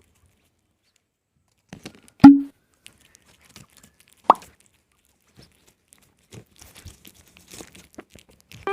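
A cat eating a snack, close-miked: a loud wet plop about two seconds in, a second sharp click about two seconds later, then faint scattered mouth clicks.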